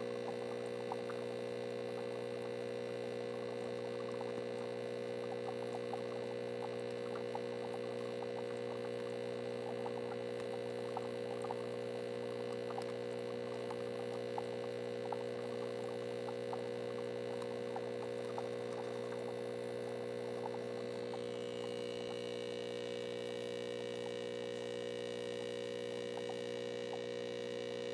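Steady electrical hum made of several fixed pitches, with faint crackling ticks running through it; the higher tones shift slightly about 21 seconds in.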